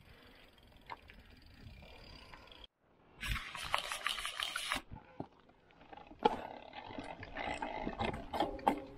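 A Nukeproof Giga mountain bike rolling down a dirt trail: a rush of tyre and wind noise with sharp clattering knocks from the bike over bumps. The sound cuts out completely for about half a second a third of the way in.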